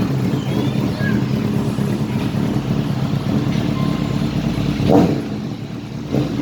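An engine running steadily, with a sharp knock about five seconds in, after which it goes quieter for a moment.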